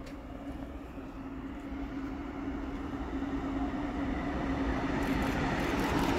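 Electric freight train of container wagons approaching on the track, its rumbling growing steadily louder; sharp clicks join in about five seconds in as it draws near.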